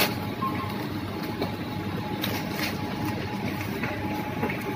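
Busy supermarket checkout din: a steady wash of store noise with scattered clicks and knocks of items and a trolley being handled, and a short beep about half a second in.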